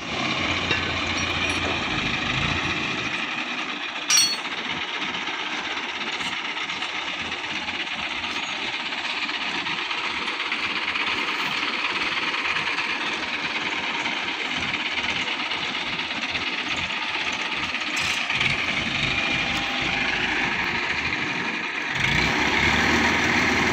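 Steady, fast rattling machinery noise on a construction site, with one sharp click about four seconds in. Near the end a crane's diesel engine rumbles louder.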